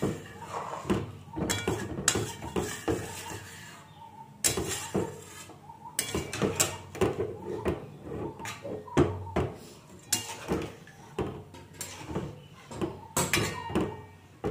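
A long metal ladle stirring a liquid chicken curry in a large metal pot, with irregular clinks and scrapes of metal against the pot's sides, the water just added being mixed into the masala.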